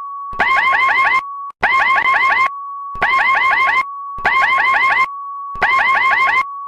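Electronic emergency alert tone: a steady beep with groups of five or six quick falling chirps laid over it, the groups repeating a little more often than once a second with the bare tone between them.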